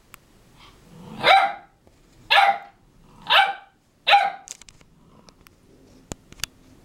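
A puppy barking four times, about once a second, in loud high-pitched barks; a couple of faint clicks follow near the end.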